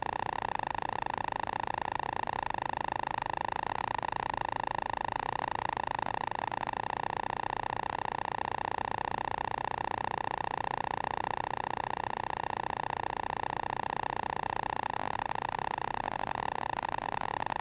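Zenith STOL CH 701's Rotax engine and propeller droning steadily in cruise flight, holding one even pitch.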